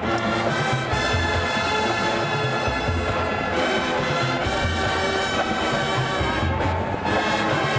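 Marching band playing: the brass section holds full chords while the drumline's bass drums beat underneath.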